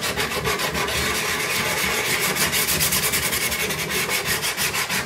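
Steel chisel rubbed rapidly back and forth on a perforated diamond sharpening plate, a steady gritty scraping in an even rhythm of strokes as it grinds metal off the chisel.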